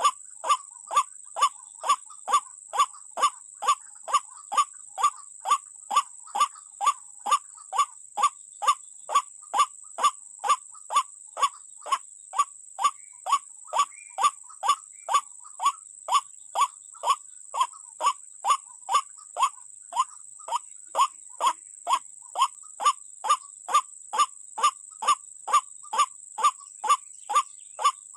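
White-breasted waterhen (ruak-ruak) calls: a short falling note repeated very evenly, about twice a second, over a steady high-pitched whine.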